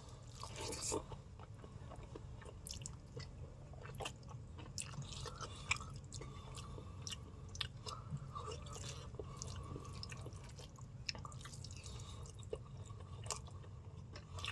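A person chewing mouthfuls of noodles and rice close to the microphone: many small irregular wet clicks and smacks over a faint steady low hum.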